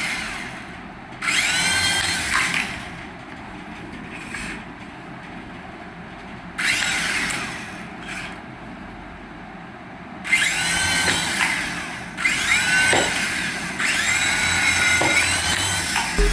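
Small electric toy motor whirring in about five short bursts, its whine rising and falling in pitch.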